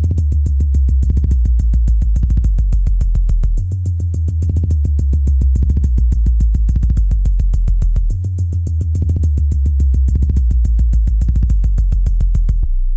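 Electronic bass music of the car-audio kind: deep sustained sub-bass notes that shift pitch every few seconds under a fast, even drum-machine pattern. The drums drop out near the end, leaving the bass.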